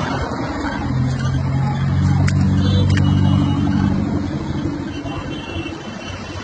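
Heavy vehicle's engine running, a steady low drone that swells about a second in and eases off after about four seconds. Two short clicks sound near the middle.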